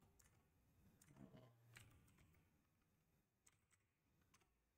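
Very faint computer keyboard typing: a few scattered keystroke clicks.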